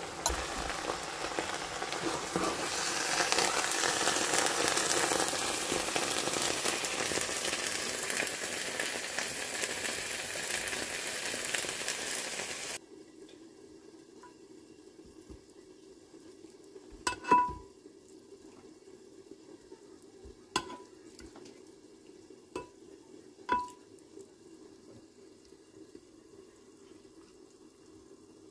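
Greens, white beans and onion sizzling in a non-stick pan, a steady hiss that cuts off abruptly about 13 seconds in. After that, four light clinks of a serving utensil against a glass baking dish and plate.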